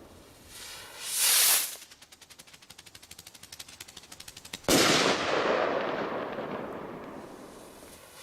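Firework rockets being launched: a short rising whoosh as one takes off, then a rapid run of crackling pops, then a single loud bang that echoes and dies away over about three seconds. Another rocket whooshes up at the very end.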